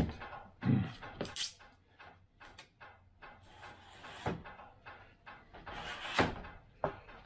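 Workbench handling noises: a sharp knock at the start, then scattered clicks, taps and brief rustles as model parts and tools are moved about.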